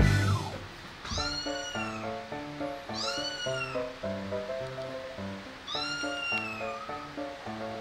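A recorded cat meow played back from a hidden spot, three times, each call drawn out for close to a second and rising then falling in pitch. Light background music with a stepping melody runs underneath.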